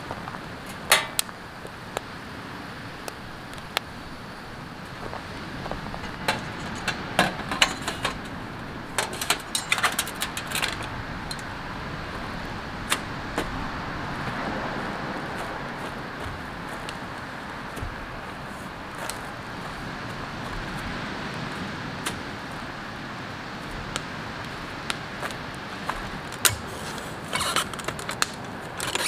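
Campfire of pine needles and split kindling in a small fire pit, crackling with sharp pops scattered throughout, heard over a steady rushing background.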